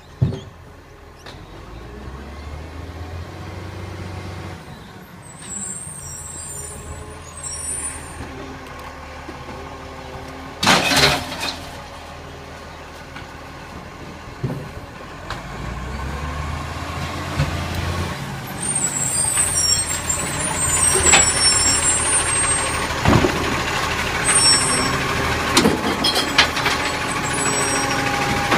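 Side-loading garbage truck's diesel engine running as it drives up and pulls in beside the bins, growing louder as it nears. A loud hiss of air brakes comes about eleven seconds in, with a few clanks near the end.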